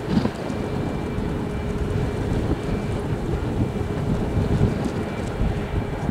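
Boeing 737-800's CFM56-7B turbofan engines on final approach: a steady low rumble with faint held whining tones, mixed with wind buffeting the microphone.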